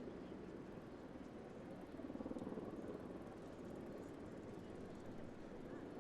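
Faint, steady outdoor background rumble with no distinct event.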